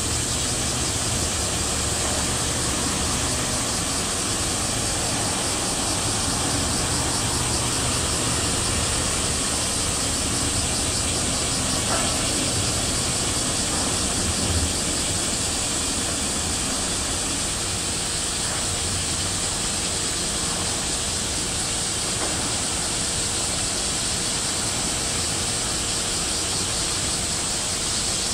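Steady low rumble of a large car carrier ship passing close by under way, beneath a constant high hiss.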